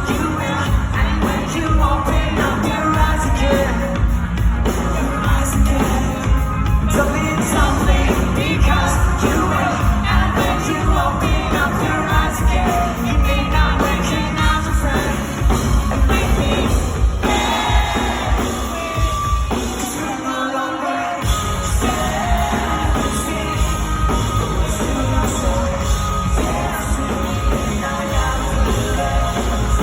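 Live rock band playing a song, with lead vocals and the audience singing along. The bass and drums drop away briefly about twenty seconds in, then the full band comes back.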